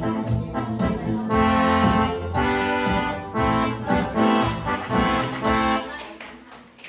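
Instrumental accompaniment of held chords on an accordion- or organ-like reed or keyboard instrument, the chord changing about every second, fading out near the end.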